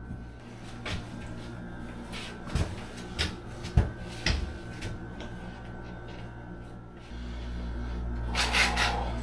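Light knocks and taps from shower wall panels being handled and set, several in the first half, then a brief scraping rub near the end, over a steady low hum.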